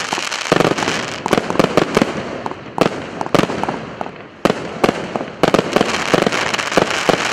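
A 100-shot consumer fireworks battery (cake), 'Мечта пилигрима' PC658, firing: rapid, irregular sharp bangs over a dense crackling hiss. The hiss thins briefly a little past the middle before loud bangs start again.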